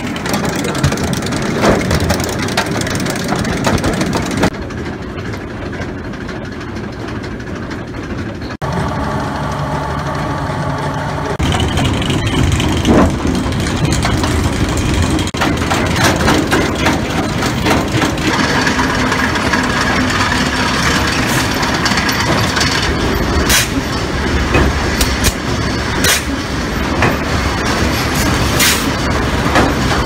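Sawmill log-handling machinery running: chain conveyors and log decks moving logs, a loud, continuous industrial noise that shifts in character a few times, with sharp metallic knocks and clanks, most of them in the last third.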